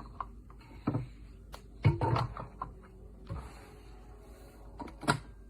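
Handling clunks and knocks from a small metal handgun safe and the gear being set inside it: a few separate hits, the loudest about two seconds in and another sharp one near the end.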